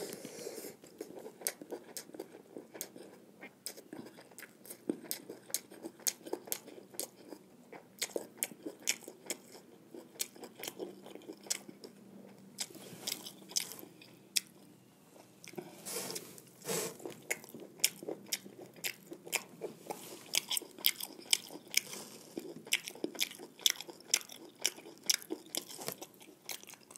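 Close-miked chewing and biting of a person eating jeera rice and fried buffalo tongue: a steady run of irregular wet smacks and small crunchy clicks.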